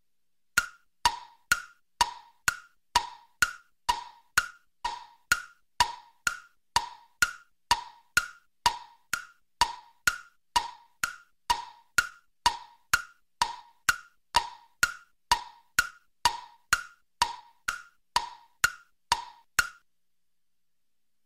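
Tick-tock sound effect: sharp wooden-sounding ticks, about two a second, alternating between a higher and a lower pitch, stopping shortly before the end.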